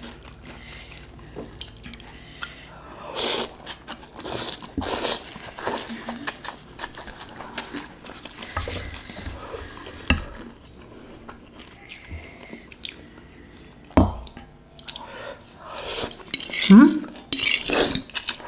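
Metal fork clinking against a glass dish and a ceramic bowl as noodles in soup are scooped and served, with scattered light clinks and two sharper knocks about ten and fourteen seconds in.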